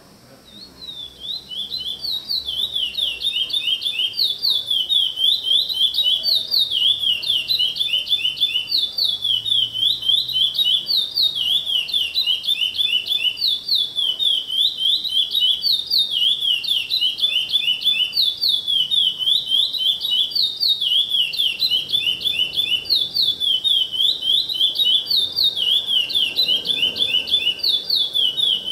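Caged songbird singing one long, unbroken song of quick, high, slurred notes in rapid repeated phrases, starting about a second in and carrying on without a pause.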